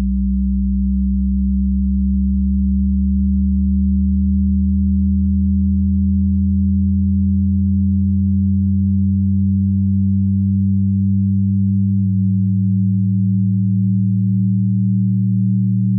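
Steady, deep synthesized drone of several layered pure tones. The lowest tones slowly glide upward in pitch, and one of the upper tones shifts slightly about twelve seconds in.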